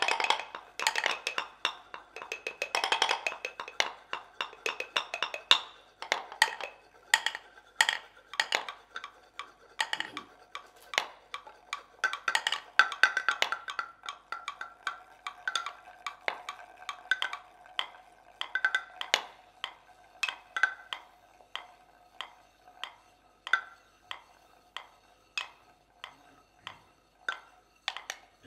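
An ensemble of seven hand-held mortars knocked in rhythm as percussion instruments, making sharp, hollow wooden knocks. The knocks come thick and fast at first, then thin out to a sparser, more even pulse of single strokes, with a faint steady ring underneath.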